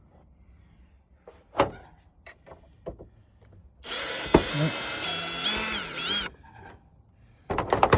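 Power drill driving out a screw from the TV's back panel: a few light clicks and knocks, then the drill runs for about two and a half seconds with a whining motor, its pitch dipping and coming back up just before it stops.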